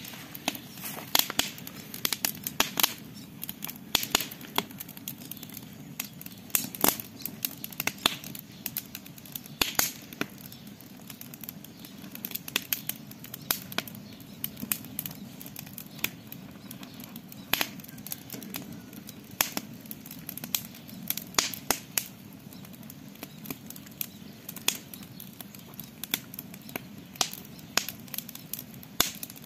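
Campfire crackling: irregular sharp pops and snaps, several a second, over a steady low background.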